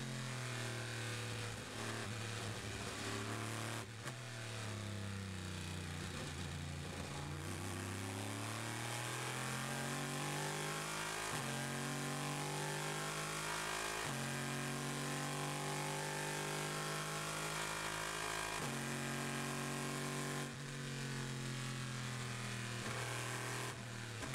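Chevrolet Corvette C7.R's 5.5-litre V8 race engine heard from inside the cockpit. Revs fall at first, then the engine pulls hard through three quick upshifts, then lifts off and drops revs through downshifts near the end.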